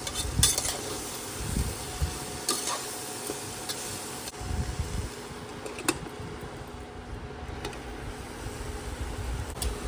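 Potatoes and cabbage being stirred in a pan with a spatula over a steady sizzle, with scattered clicks and scrapes of the spatula against the pan and a few dull knocks.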